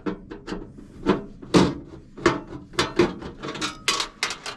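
Screwdriver and screw clicking against the sheet-metal housing of a range hood as a screw is backed out: a dozen or so sharp, irregular metallic clicks.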